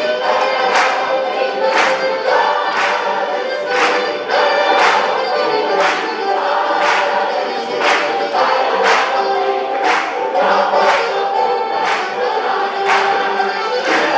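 Large choir singing African-style music, with a steady percussion beat about once a second.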